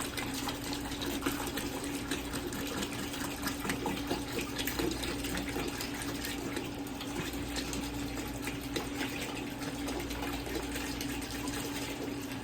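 Vinegar pouring steadily from a gallon jug into a bucket of liquid, with a steady hum beneath.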